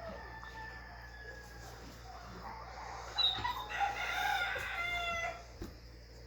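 A rooster crowing once, a long call starting about three seconds in and lasting about two seconds.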